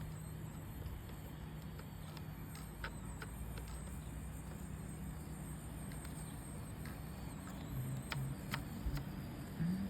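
Small electric motors of 1/24-scale RC crawlers running, a low hum with a faint high whine, and a few sharp plastic clicks and knocks, two of them close together about eight seconds in.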